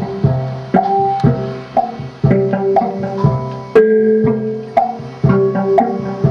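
Improvised music: drums and percussion struck with a beater in quick, uneven strokes, about three a second, each stroke followed by ringing pitched notes, with a longer held note about two-thirds of the way through.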